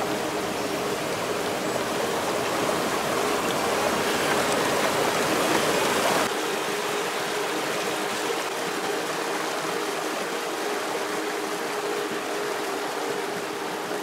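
Mountain river running steadily, a constant rush of flowing water. About six seconds in it drops a little in level and loses some of its low rumble.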